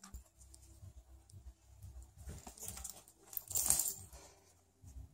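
Footsteps and a small dog's paws on a wooden floor, with one brief clinking rattle, the loudest sound, about three and a half seconds in.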